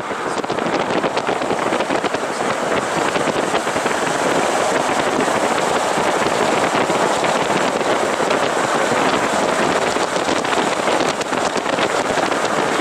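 Steady road and wind noise from a moving car, with wind buffeting the microphone.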